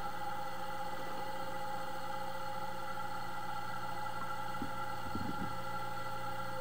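Car alternator converted to run as a motor, running with a steady electrical whine of several held tones over a low hum. A few faint low knocks come about five seconds in.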